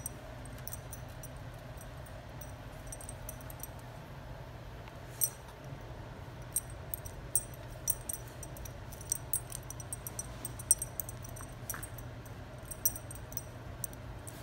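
Metal tags on a dog's collar jingling in short, irregular clinks as the dog moves about sniffing, coming more often in the second half, over a steady low hum.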